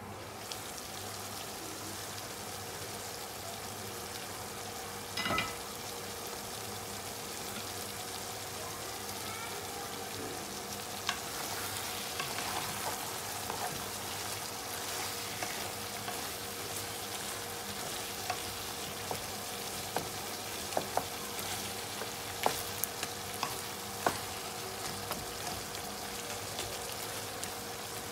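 Lamb stew sizzling steadily in an open frying pan, with a single clink about five seconds in. From about eleven seconds in, a wooden spatula stirs the meat and sauce, tapping and scraping against the pan.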